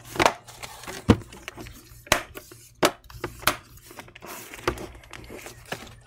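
Snap clips of an HP 17-cn laptop's bottom cover clicking into place as the cover is pressed down along its edge: a series of sharp, irregularly spaced clicks.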